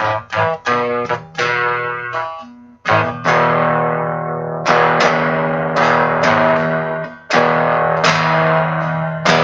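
Soundtrack music on guitar: quickly repeated plucked chords for the first couple of seconds, then slower chords, each struck sharply and left to ring out and fade.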